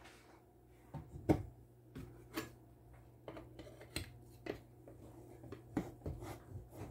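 Irregular light knocks and clicks of soap bars and a red-handled soap cutter being handled in a slotted bamboo soap-cutting box, the sharpest two near the start, over a faint low hum.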